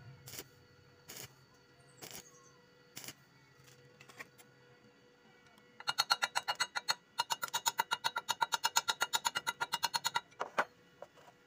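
Background music: single sharp clicks about once a second over a held tone, then, about halfway in, a fast, even run of repeated notes lasting about four seconds.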